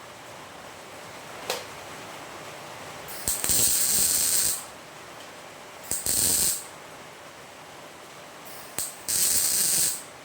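Electric arc welder laying three short tack welds on a 2 mm steel bracket. Each weld is a sizzling hiss of about half a second to just over a second, starting with a sharp click, the first about three seconds in, then about six and about nine seconds in.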